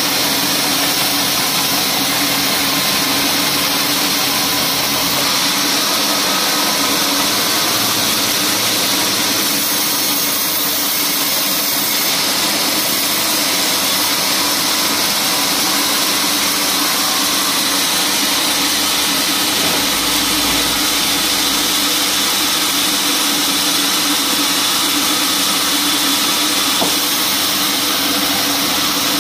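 Vertical band sawmill running steadily, its blade cutting lengthwise through a teak log.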